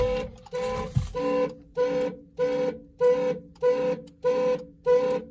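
2001 Ford Expedition's anti-theft alarm going off, honking the horn in short, even blasts about one every 0.6 seconds.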